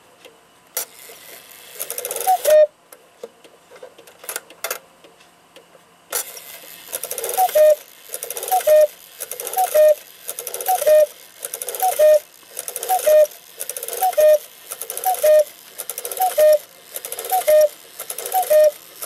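Hubert Herr cuckoo clock movement calling: a few clicks of the striking mechanism, a single cuckoo call, then a run of about a dozen calls about a second apart. Each call is the two-note cuckoo, high then low, from the bellows-driven pipes, with the hiss of air from the bellows.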